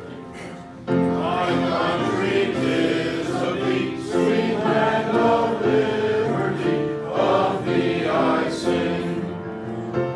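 A group of voices singing together, choir-style, with long held notes, getting much louder about a second in.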